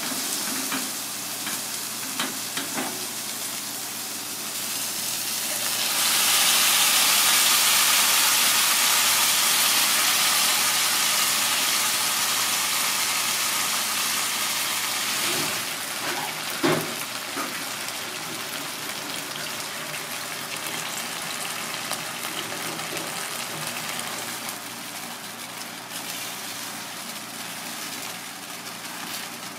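Cream sauce sizzling and bubbling in a hot frying pan around seared fish fillets. The sizzle swells loud about six seconds in and slowly settles, with a few knocks of a wooden spatula against the pan about halfway through.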